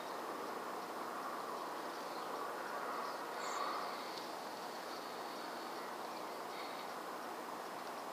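Steady outdoor background hiss with no distinct event, swelling slightly about three and a half seconds in.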